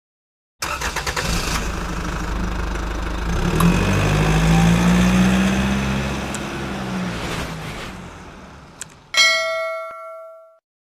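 Intro sound effects: an engine-like sound that starts with rapid pulses, swells with a rising pitch and then fades away, followed near the end by a click and a bright notification-bell ding.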